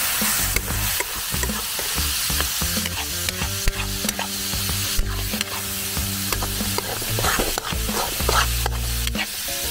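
Ground beef sizzling as it browns in a hot wok with no oil, stirred and scraped around the pan by a spatula. The beef is frying in the fat it is rendering out.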